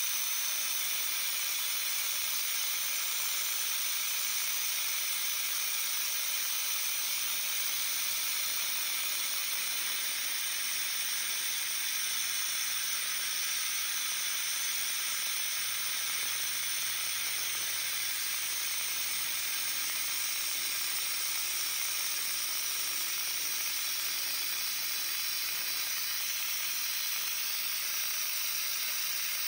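Milling machine rough-cutting a pocket in a metal block with an end mill, under a steady hiss of spray from the coolant nozzle aimed at the cut.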